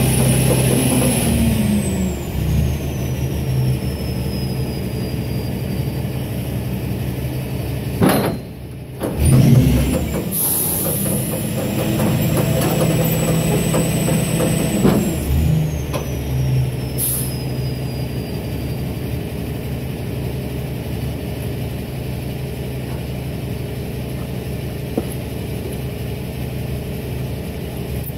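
Kenworth T800's diesel engine running under load, rising and falling in pitch with a high whine as the tilt deck is lowered, broken by short bursts of air hissing about 8, 10 and 17 seconds in. After that the engine idles steadily.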